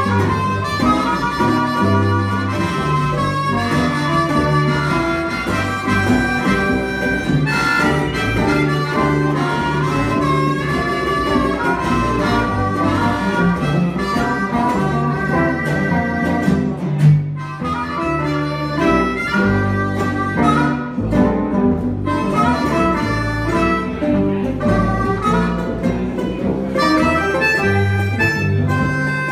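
Live blues band playing: a harmonica carries the lead over strummed acoustic and electric guitars and a walking upright bass line.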